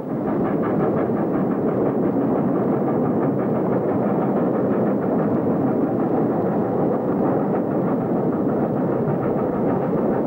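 Steady, loud rumbling noise with no words or distinct events.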